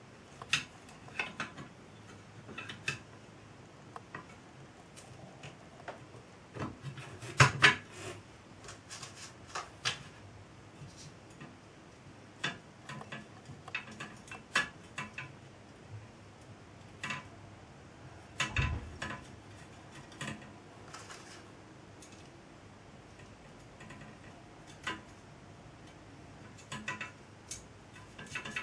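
Irregular clicks, taps and light knocks of small metal parts being handled and fitted together by hand on a workbench, with a louder cluster of knocks about seven seconds in and a duller knock later on.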